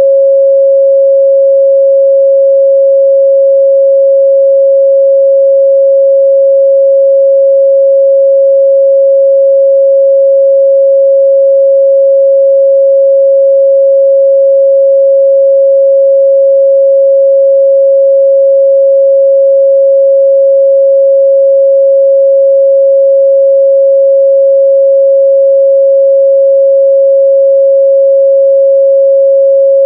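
Steady, loud 547 Hz sine-wave test tone, a single pure midrange pitch held without change.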